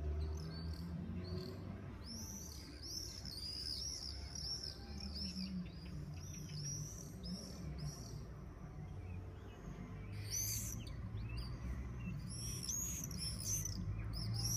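A flock of swallows calling as they fly overhead: bursts of rapid, high, shrill calls that come and go, loudest as the birds pass about ten seconds in and again near the end, over a steady low background hum.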